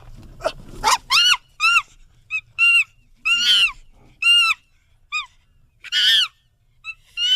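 Monkey giving a series of short, high-pitched calls, each rising then falling in pitch, about a dozen in quick, irregular succession.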